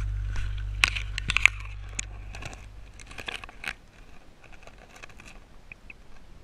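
Sharp crackles, clicks and splashy noises as a waterproof action camera goes under the water surface, strongest about a second in, thinning to faint scattered ticks once it is submerged. Background music fades out in the first couple of seconds.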